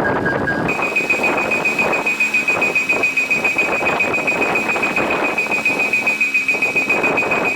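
Railway level-crossing warning bell ringing rapidly and steadily, a high repeating tone that sets in just under a second in, with the noise of a train going past underneath.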